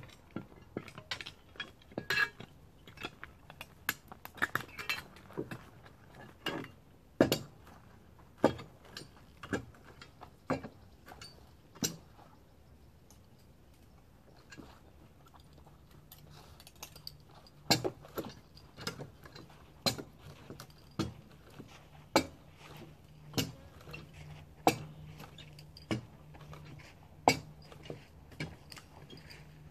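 Sharp metallic clinks and knocks from a lineman's pole-climbing gear and tools as he climbs a utility pole step by step: irregular at first, then about one every second or so. A faint low steady hum comes in about halfway through.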